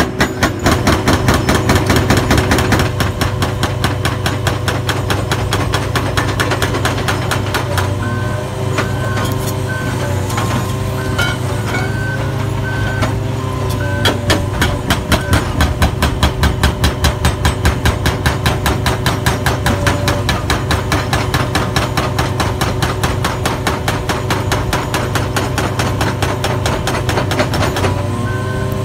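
NPK GH-18 hydraulic breaker on an excavator hammering its chisel into reinforced concrete and rubble, striking at a rapid, even rate of several blows a second, over the steady hum of the excavator's engine.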